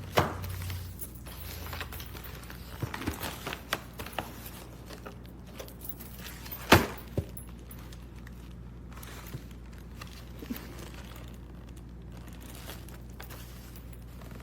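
Handling of plastic baby-bottle parts and packaging: scattered light clicks and knocks, with two sharper knocks, one right at the start and one near the middle, over a low steady hum.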